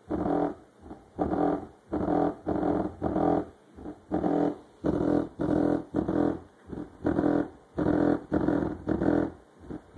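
Custom 15-inch subwoofer playing bass-heavy music loud: about a dozen short, buzzing bass pulses in an uneven beat, starting suddenly.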